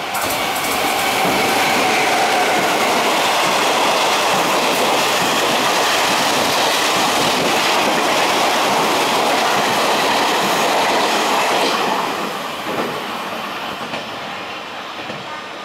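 Electric-locomotive-hauled Chu-Kuang express passenger train running through a station without stopping: a steady, loud rushing of wheels on rails as the locomotive and coaches pass. About twelve seconds in it falls away as the last car goes by.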